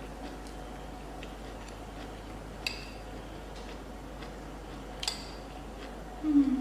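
Metal cutlery clinking twice against a plate or bowl, each a sharp click with a short ring, amid faint soft ticks of eating. Near the end comes a brief low hum, the loudest sound here.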